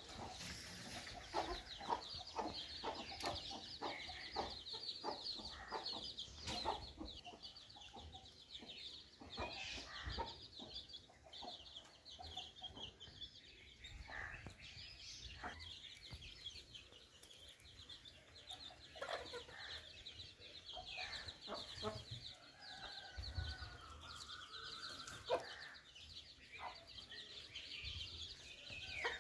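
Backyard hens clucking as they forage: a quick run of short clucks over the first few seconds, then scattered clucks and calls. A steady high-pitched chirring sounds in the background.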